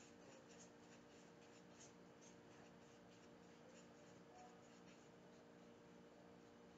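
Faint scratching of a paintbrush stroking across watercolor paper: many short, soft strokes over a steady low hum.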